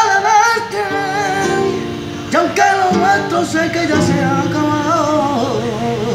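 A man singing an improvised, wavering, ornamented melody while accompanying himself on a nylon-string classical guitar. There are two sung phrases, the second starting about two and a half seconds in, over plucked and strummed chords.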